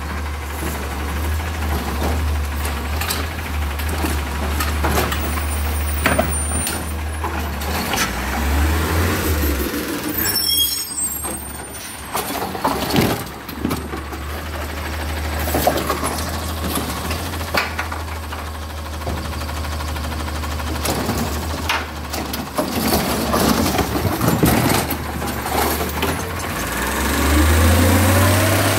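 Autocar ACX garbage truck with a Heil Rapid Rail automated side-loader arm working a cart: the engine runs steadily and revs up twice, about 8 seconds in and near the end, as the hydraulic arm grips, lifts and dumps. Scattered knocks and clatter come from the cart and the arm.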